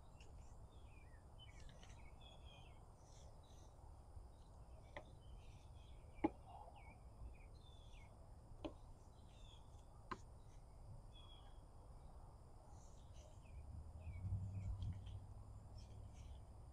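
Faint outdoor birdsong: many short, high chirps scattered throughout. A few sharp clicks fall in the middle, and a low rumble rises near the end.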